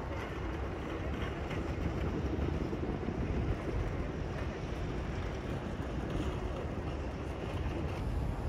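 Steady outdoor city ambience: a low, even rumble of distant traffic with no distinct events.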